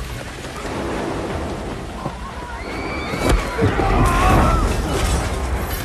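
Movie fight sound effects: a scuffle over a noisy bed, then a heavy thud about three seconds in as two bodies crash down together, followed by a deep rumble.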